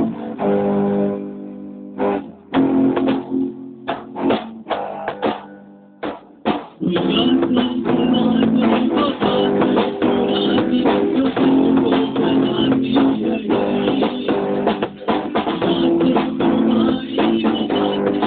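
Rock band playing with guitar and drum kit: a run of short separate hits with pauses between them, then about seven seconds in the full band comes in and plays continuously.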